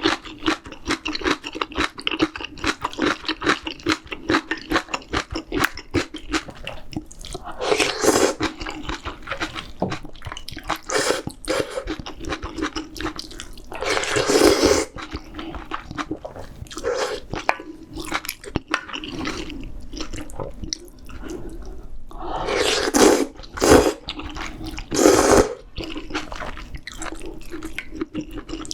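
Close-miked mouth sounds of eating spicy seafood ramyeon: steady wet chewing, with several loud slurps a second or so long.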